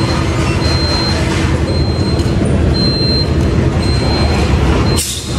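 Motorcycle on the move: steady engine rumble mixed with road and wind noise. A faint high beep repeats about once a second. The sound drops out abruptly for a moment near the end.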